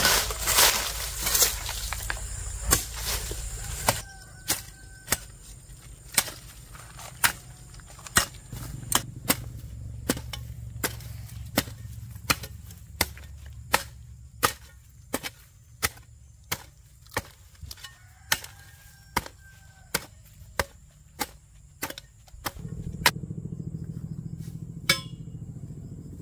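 Repeated chopping strokes: a sharp knock roughly every three-quarters of a second, kept up at an even pace. Near the end a low steady rumble comes up under the knocks.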